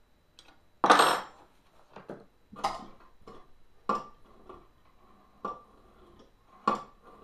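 Metal clanks from a cast-iron pitcher pump: one loud clank about a second in, then several lighter ringing clunks, about one every second or so, as the piston rod is worked up and down in the bore. The rod is being pumped to test suction in the freshly honed, oiled cylinder.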